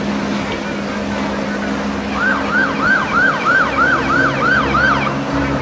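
An electronic siren yelping: a quick rise-and-fall tone repeated about eight times, nearly three a second, starting about two seconds in and stopping near the end. Under it runs a steady engine hum.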